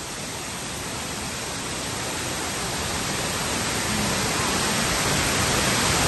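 Steady rushing hiss of falling water from a waterfall, growing gradually louder.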